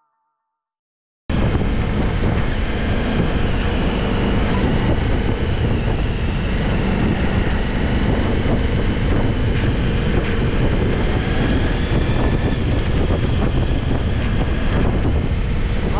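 Riding footage from a Ducati Multistrada V4 S motorcycle: steady wind rushing over the microphone, with the engine running underneath. It cuts in suddenly a little over a second in, after silence.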